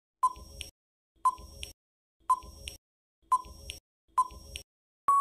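Countdown timer sound effect: five ticks about a second apart, each a short ringing tone followed by a softer click. A steady beep starts near the end, marking time up.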